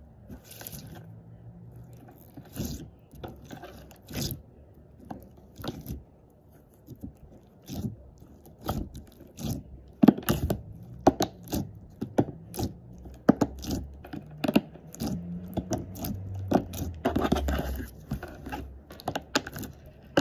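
Crunchy slime packed with foam balls being squeezed, pressed and poked by hand, giving irregular sticky clicks, pops and crunches. They are sparse at first and come thicker and louder from about halfway through.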